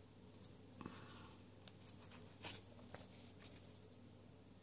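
Faint sliding and rubbing of 2016 Panini Limited football cards being flipped through in a stack by hand, with a few soft scrapes and one sharper card snap about halfway through.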